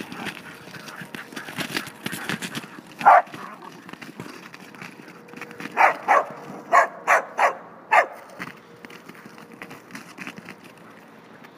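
A dog barking: a single bark about three seconds in, then a quick run of about six barks a couple of seconds later.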